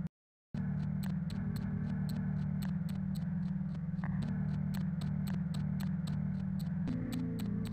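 Background soundtrack of a steady low drone with an even, fast ticking, about four ticks a second. The sound cuts out completely for about half a second right at the start, then resumes.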